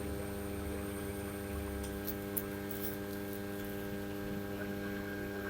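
Steady electrical mains hum with its overtones, unchanging throughout, with a few faint ticks about two to three seconds in.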